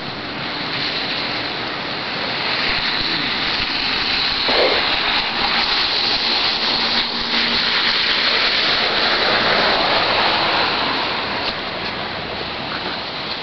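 A steady rushing noise with no clear tone. It swells louder through the middle and eases off near the end.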